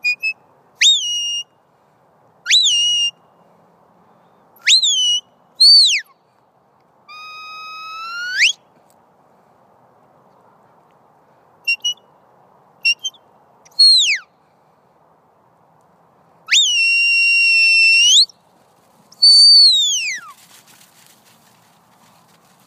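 A sheepdog handler's whistled herding commands to a working border collie: a run of sharp, high whistle notes. Short pips mix with rising-then-falling notes, one long rising note, and a long held note, ending about 20 s in with a falling note.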